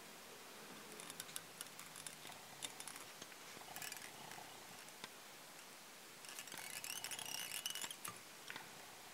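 Faint scratching and crackling of fingers handling tying thread and rubber legs on a fly hook in the vise. It comes in short spells about a second in and near four seconds, then in a longer stretch from about six to eight seconds.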